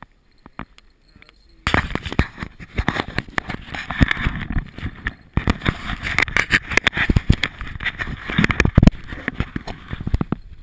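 Handling noise from an action camera being taken off its mount and turned over by hand: loud, irregular rubbing and knocking on the camera's housing. It starts suddenly about a second and a half in, pauses briefly midway and stops just before the end.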